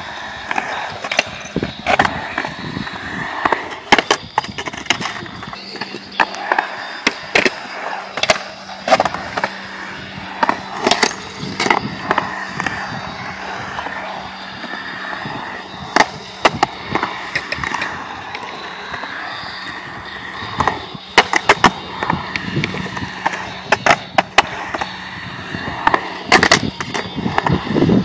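Skateboard rolling and carving around a concrete bowl: a steady rumble of wheels on concrete, broken by frequent sharp clacks and knocks from the board.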